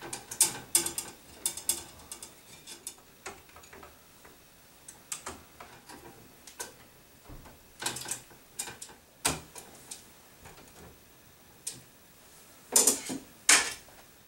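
Scattered clicks, taps and scrapes of hands and tools working electrical wires into a metal breaker panel, with two louder, longer sounds near the end.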